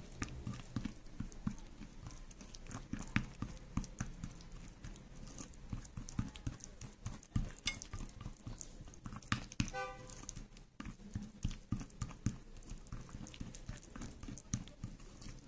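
Small plastic spoon stirring and scraping a thick lemon-juice and ground-rice paste in a cut-glass bowl: irregular soft taps, clicks and squishing, with one brief squeak about ten seconds in.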